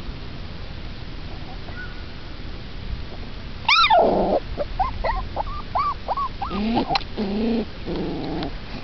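Young desi (Indian street dog) puppies whimpering and yelping: a loud high yelp a little under four seconds in, then a run of about six short squeaky whines, and lower whining cries near the end.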